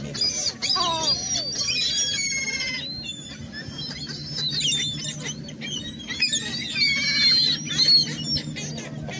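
A flock of gulls calling over one another: many overlapping high calls, with a quick run of repeated notes about two seconds in. A steady low hum runs underneath.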